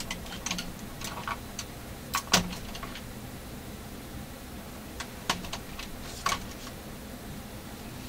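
Irregular light clicks and clatters of small hard objects being handled on a workbench, coming in a few clusters, with the loudest knock about two and a half seconds in, over a faint steady hum.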